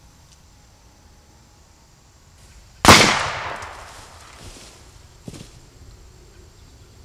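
A single handgun shot about three seconds in: one sharp crack with a long echoing tail that dies away over a second or so.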